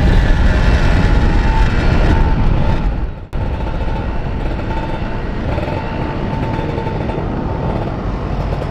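Wind rushing over the microphone at riding speed, with the Kawasaki Ninja RR150's single-cylinder two-stroke engine running steadily underneath. The sound drops out briefly about three seconds in.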